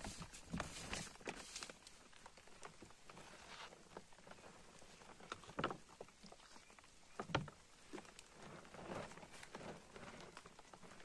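Scattered rustling and crackling of dry leaves and a plastic tarp as a person crawls on the leaf-strewn ground into a low shelter, with two louder knocks about five and a half and seven seconds in.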